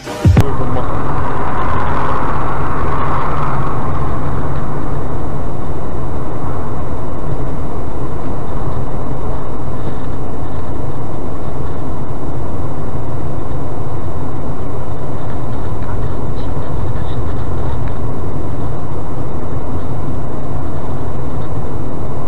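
Steady rumble of a car driving on a snowy road, heard from a dashcam inside the car: engine and tyre noise, with a higher hiss that fades over the first few seconds.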